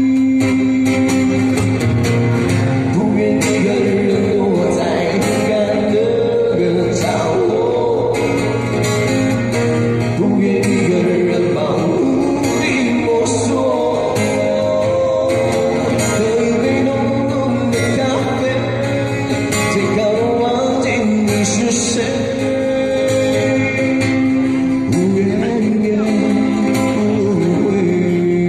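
Music: the instrumental passage of a Mandarin ballad, with guitar accompaniment and a sustained melody line carrying over it, between sung verses.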